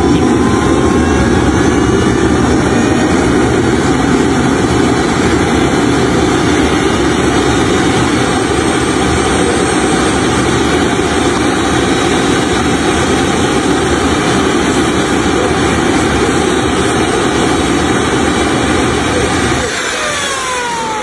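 Homemade jet engine running self-sustaining on a test stand: a loud, steady rushing roar with a faint whine over it. Near the end the roar drops away and the whine falls in pitch as the engine winds down.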